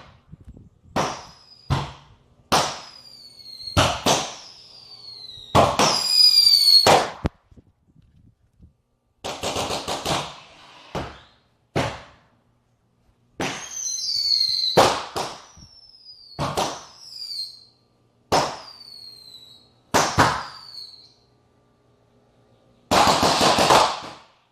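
Firework cake going off, a series of sharp shots, most followed by a brief whistle falling in pitch, with a few longer hissing bursts between them and a last one near the end.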